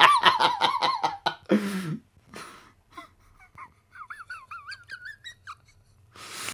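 A man laughing in a high, quick, pulsing giggle that fades after about a second and a half. A second, quieter giggle comes about four seconds in, and there is a breath near the end.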